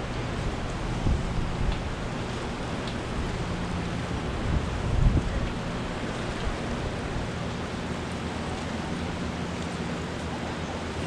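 Steady rushing of churning white water below a dam. There are two low bumps on the microphone, one about a second in and a louder one around five seconds.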